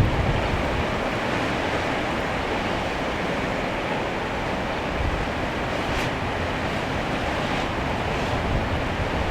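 Floodwater rushing past in a steady, unbroken roar of running water.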